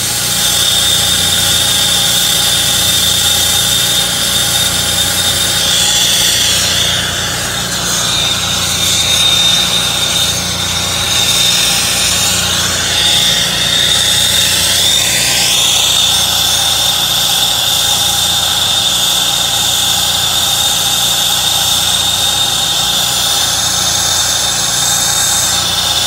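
Brazing torch flame hissing steadily as a filter drier's copper joints are brazed. The hiss shifts and swells between about six and sixteen seconds. Under it runs a steady machine hum with a high whine.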